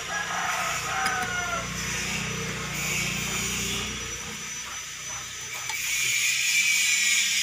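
Hand trowel scraping and smoothing damp sand-and-cement mortar on a flower-pot mould while it is being levelled, with a low hum through the first four seconds.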